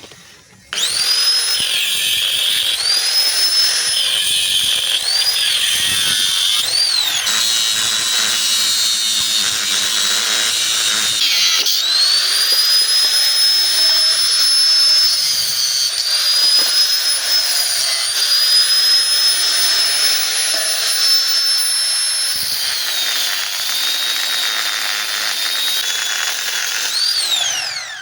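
Electric power tool motor running at high speed with a loud, high whine that dips and recovers several times under load. It starts about a second in and winds down near the end.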